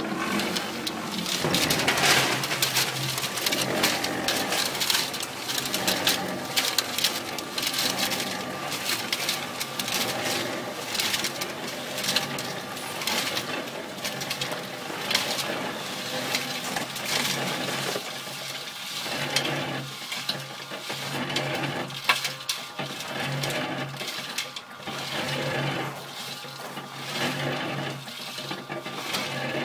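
Small electric cement mixer running, with a steady motor hum under a continuous gritty rattle of concrete and gravel tumbling in the turning drum, as the drum is tilted and the mix pours out.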